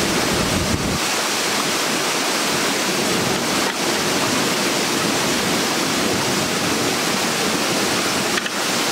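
Steady, loud rush of fast-flowing river water tumbling over falls close by.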